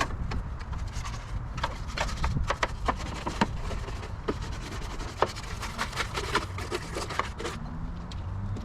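Brush scrubbing the bare sheet metal of a car's engine bay during degreasing: continuous rubbing and scraping broken by irregular clicks and knocks.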